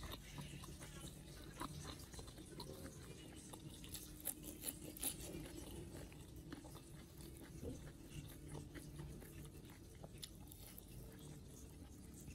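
Faint chewing of a hand-eaten meal of rice and sambal, with small clicks and a few louder crunches about four to five seconds in.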